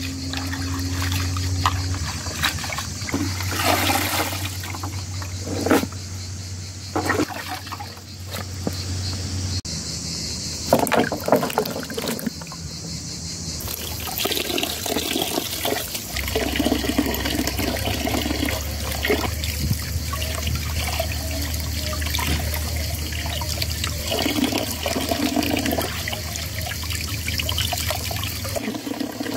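Hands swishing and lifting leafy greens in a plastic basin of water, with splashing, dripping and trickling. Wet vegetables are handled in the water and lifted out.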